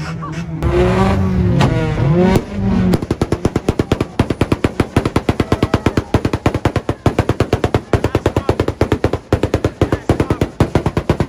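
A fast, even string of sharp bangs, about six or seven a second, starts about three seconds in and keeps going. Loud crowd voices are heard before it.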